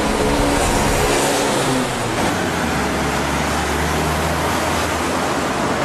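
A car engine running on the street, with a steady low hum over a constant rushing background noise.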